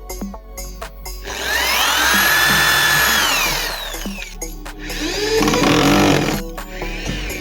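A handheld power tool's motor spinning up, running and winding down, twice: a long whine near the start and a shorter, lower one in the second half, over background music.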